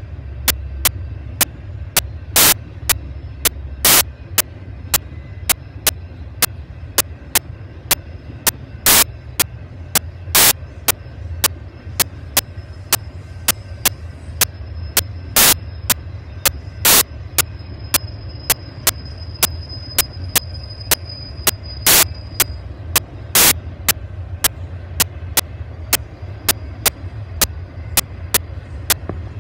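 Railroad grade-crossing warning bell dinging steadily at about two strikes a second, some strikes much louder than others, over a steady low rumble.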